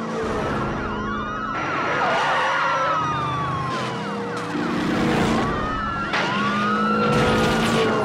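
Several police car sirens sounding at once, their pitches rising and falling over one another, with a fast repeating yelp near the start. Rushes of noise come and go through it.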